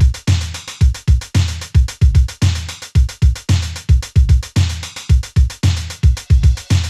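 Electronic hip-hop beat from a drum machine: a repeating pattern of kick drums with deep, decaying bass under a fast, busy ticking top end.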